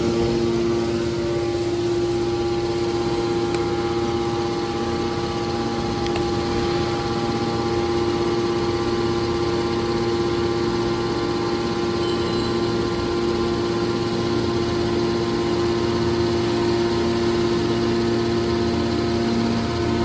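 Electric motor and hydraulic pump of a scrap aluminium hydraulic baler running steadily, an even mechanical hum with several held tones.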